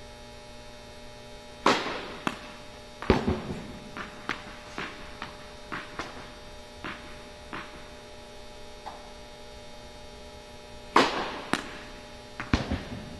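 Two tennis serves in an echoing indoor court: a sharp crack of racquet on ball about two seconds in and again about eleven seconds in, each followed by the ball's bounces. After the first, a run of smaller, fading bounces follows for several seconds. A steady electrical hum runs underneath.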